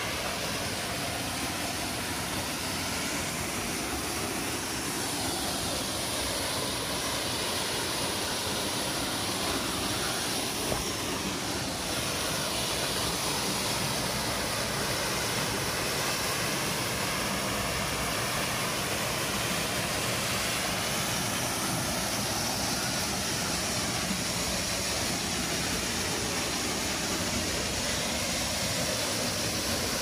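Small waterfall pouring over a rock ledge into a pool: a steady rush of falling water.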